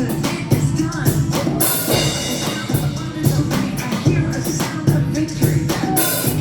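Upbeat church worship song: singing over a drum kit with a steady, driving beat.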